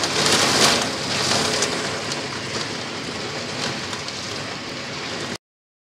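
Torrential typhoon rain pouring down in a dense, rushing hiss with scattered crackling spatter. It is loudest in the first second and cuts off abruptly near the end.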